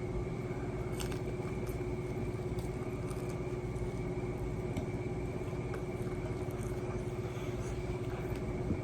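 Steady low background hum with a held tone, and a few faint crisp clicks of someone chewing fried food close to the microphone.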